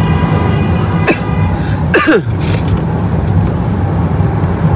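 Car cabin noise while driving: a steady engine and road drone. About two seconds in comes a short sound that drops sharply in pitch.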